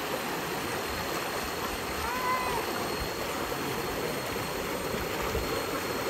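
Steady rush of stream water pouring down a small rock chute into a shallow pool.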